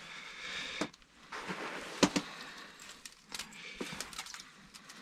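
Hands handling ice-fishing tackle: rustling with several sharp clicks and knocks, the loudest about two seconds in.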